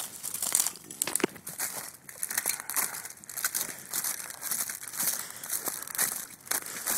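Footsteps crunching and crackling through thin ice and dry, dead reeds, in a steady walking rhythm.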